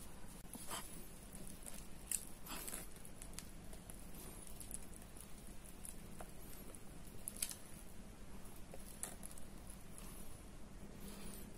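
Faint, scattered scrapes of a spatula against a glass mixing bowl as thick banana bread batter is pushed out into a loaf mold, with soft wet sounds of the batter.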